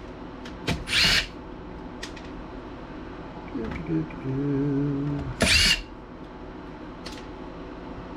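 Power driver spinning out laptop screws in two short bursts, each a brief high whine, about a second in and again about five and a half seconds in, with small clicks of the screws and parts in between. A low wavering hum sounds for about a second and a half just before the second burst.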